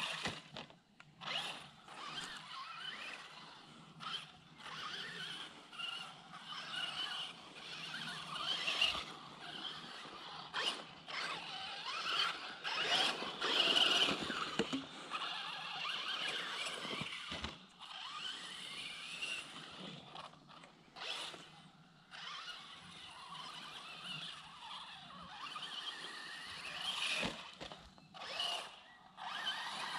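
Traxxas Slash 4x4 RC truck driving on a dirt track: its electric motor and gears whine, rising and falling in pitch with the throttle, with many sharp knocks from the tyres and chassis on the dirt. It swells and fades as the truck moves round the track, loudest about halfway through as it passes close.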